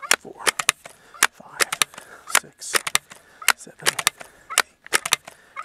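Seneca Dragonfly MKII multi-pump pneumatic air rifle being pumped: the pump lever is swung open and shut stroke after stroke, its linkage giving sharp clicks and clacks in quick clusters, charging the rifle with air for a shot.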